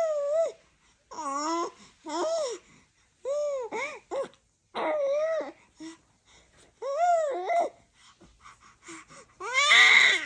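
A baby babbling in a string of short, high-pitched vocal sounds whose pitch rises and falls. The loudest is a squeal near the end.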